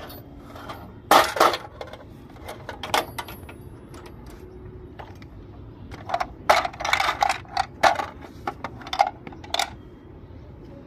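Small plastic toy pieces being handled and set down: a string of sharp clacks and rattles, a cluster about a second in and a busier run in the second half, with a light metallic clink of small keys.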